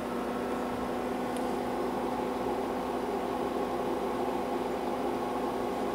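IBM PC RT 6150 running its fans and power supply just after power-on: a steady drone with a low hum, while the machine runs its power-on self-test before the hard drive spins up.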